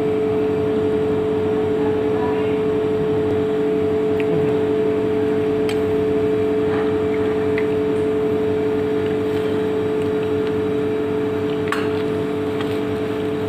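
Steady machine hum: a constant mid-pitched drone with several fainter steady tones beneath it. Two faint clicks, about six and twelve seconds in.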